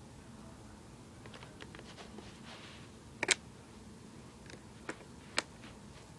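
Laptop keys or buttons being pressed: a few light taps, then a loud double click a little past three seconds and two more sharp clicks near the end, as someone tries to get a laptop that won't turn on to respond.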